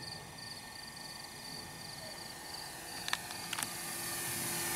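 Crickets chirping steadily in pulsed trills, with two sharp clicks about three seconds in. Near the end the E-flite Cessna 150 RC plane's electric motor and propeller grow louder as it flies toward the microphone.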